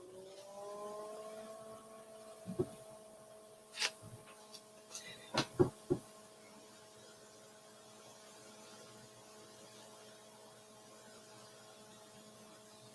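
Faint steady hum of a few tones that rise in pitch over the first second or two and then hold, like a small motor spinning up, with a handful of light clicks and taps between about two and six seconds in.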